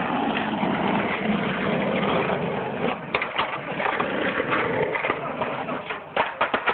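Skateboard wheels rolling on asphalt, a steady rumbling hiss, with sharp clacks of the board a little after three seconds and a rapid cluster of clacks near the end as a board comes down from a trick.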